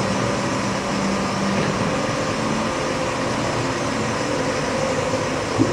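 Kitamura MyCenter 1XIF vertical machining center running with its Z axis traversing: a steady machine hum with a low tone from the axis drive that stops about halfway through.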